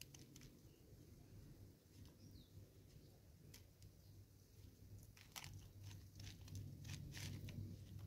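Faint crackles and clicks of a vervet monkey rummaging in a plastic-bottle seed feeder, crinkling the plastic and shifting the seed, the clicks coming more often in the last few seconds.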